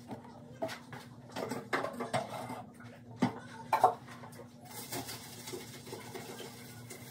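Bathroom cleaning: a run of knocks and clatters as items are handled and set down on the counter, then a steady rubbing hiss as the countertop is scrubbed by hand with a cloth.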